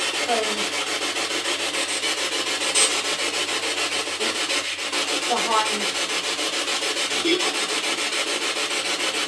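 Spirit box (radio sweep device) scanning stations, giving a steady hiss of static chopped in a fast, even rhythm. A few brief voice-like fragments break through, one late on, which the investigators take for a spirit voice saying "you".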